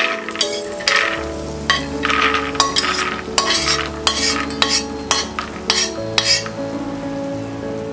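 Roasted peanuts poured and scraped with a metal spatula from a kadhai into a stainless steel plate: a run of rattling, scraping clatters that stops about six and a half seconds in.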